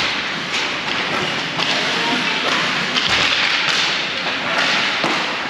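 Ice hockey play on a rink: steady scraping of skate blades on the ice, with several knocks and thuds from sticks and puck.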